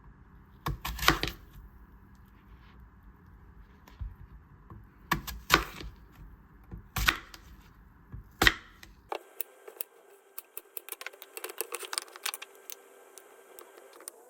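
Scattered light knocks and clicks of things being handled, with an abrupt change in background sound about nine seconds in, after which come many small rapid clicks.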